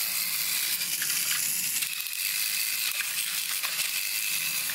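A battery-powered toy train's small electric motor whirring steadily, with a few faint clicks, while the engine is stuck on plastic track strewn with water beads. The children put the stall down to the Orbeez and a slippery track.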